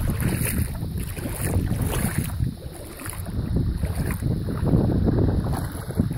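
Wind buffeting a phone's microphone: an uneven, gusting low rumble that eases briefly about two and a half seconds in.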